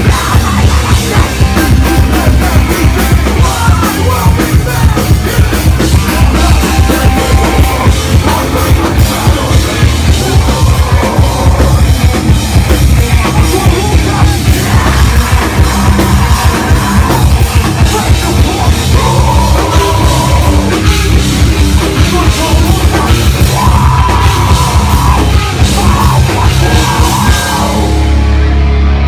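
Live heavy rock band playing loud, with a pounding drum kit and electric bass. The high end drops away briefly near the end.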